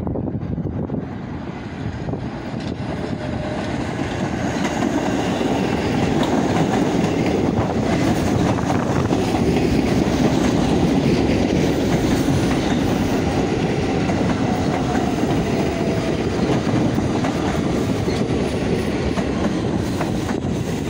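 New York City subway train coming into an open-air station and running along the platform, its rumble and wheel noise building over the first few seconds and then holding steady, with a faint whine for much of its passing.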